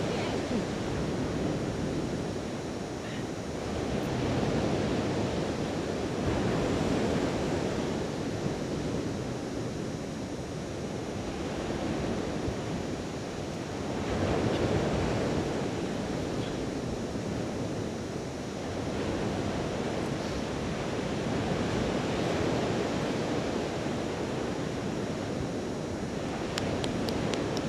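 Baltic Sea surf breaking on a sandy beach: a steady wash of waves that swells and fades every few seconds.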